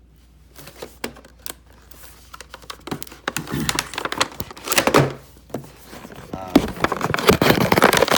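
Packaging of a computer mouse being handled and opened: a string of clicks, knocks and crinkling plastic and cardboard, growing busier and louder from about three seconds in.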